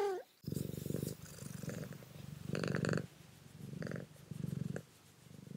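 Domestic long-haired cat purring close to the microphone: a low, fluttering purr that swells and fades with each breath in and out, about once a second.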